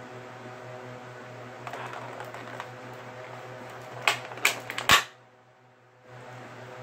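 Small hard plastic toy-figure accessory pieces being handled: light rustling, then three sharp plastic clicks about half a second apart, over a steady low hum.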